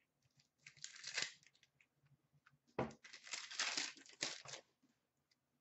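Trading cards and their packaging being handled: two spells of rustling and crinkling, the second starting with a sharp snap nearly three seconds in.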